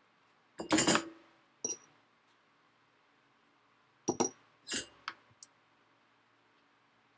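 Metal clinks and rattles from a soldering iron being set into its coiled wire stand and lifted back out. The sounds come in two short clusters about three seconds apart, and the first is the loudest.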